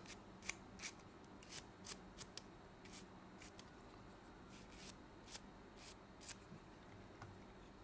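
Faint, short scratchy strokes of cleaning on a PS5 DualSense controller's plastic, wiping off white residue left by friction from heavy play. The strokes come irregularly, about fifteen of them, and stop about six and a half seconds in.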